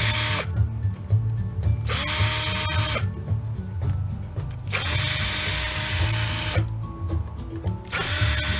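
Ryobi cordless drill/driver backing screws out of a barbecue grill's burner-control valve brackets. The motor runs in short bursts of one to two seconds, four times, each spinning up with a rising whine.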